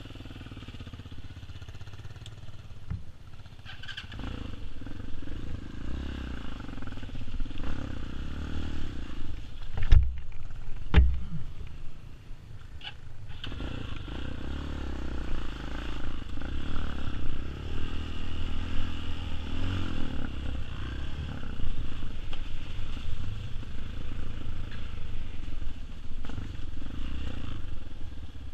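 TaoTao TBR7 dirt bike's single-cylinder engine running at low speed, its note rising and falling with the throttle as the bike moves off. Two sharp knocks come about ten and eleven seconds in.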